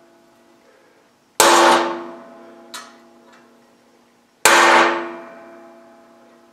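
Hand hammer striking a center punch into a mild steel bar: two sharp blows about three seconds apart, each leaving the steel ringing as it dies away. A faint click falls between them.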